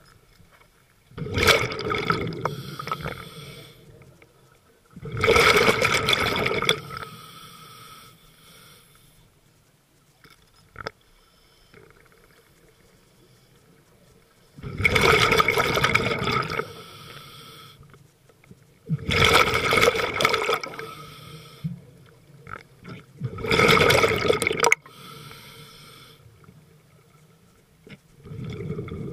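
Scuba diver breathing underwater through a regulator: a rush of exhaled bubbles every four seconds or so, with a longer pause in the middle, and a fainter hiss from the regulator on each inhale between them.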